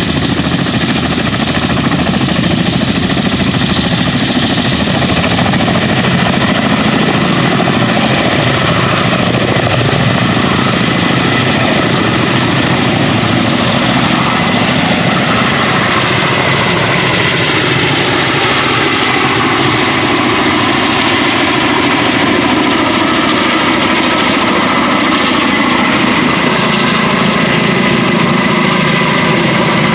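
Kamov Ka-32 coaxial-rotor helicopter, its twin turboshaft engines and rotors running loudly and steadily, with a steady high turbine whine. Past the middle, several tones glide slowly down in pitch.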